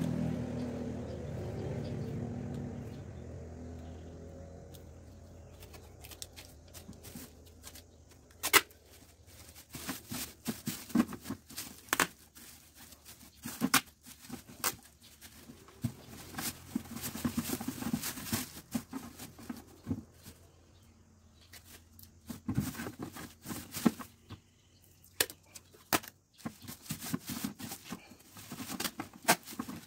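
Thin black plastic bag rustling and crinkling in irregular crackles as it is smoothed and tucked by hand over an upturned plastic pot. Background music fades out in the first few seconds.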